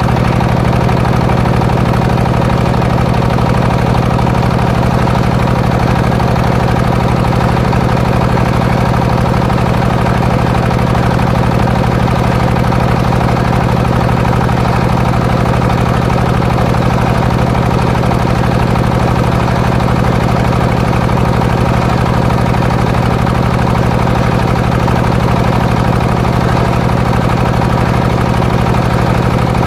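Engine of a homemade circular saw rig running steadily at an even speed, with no change in load.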